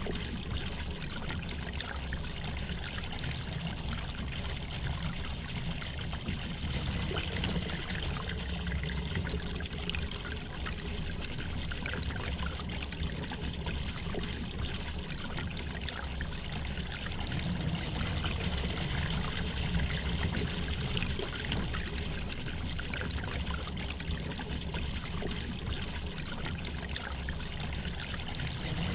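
River water flowing gently, a steady rush with a low rumble under many small trickling splashes.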